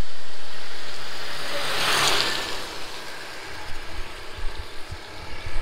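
A motor vehicle passing close by on a rain-wet road: its tyres hiss, loudest about two seconds in, and then the sound fades away.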